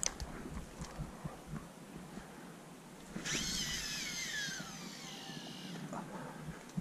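Baitcasting reel's spool spinning freely as a cast goes out: a whirring whine starts suddenly about three seconds in and falls steadily in pitch as the spool slows, stopping after about two and a half seconds. Before it there are small clicks and handling knocks.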